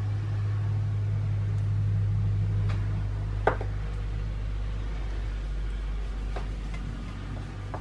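A steady low electrical hum that eases off somewhat after about five seconds, with a few light taps and clicks of things handled on the workbench, the clearest about halfway through.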